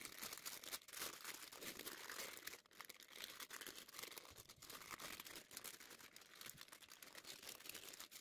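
Baking parchment being peeled off the underside of a baked sponge cake: faint, continuous crackling and rustling of the paper.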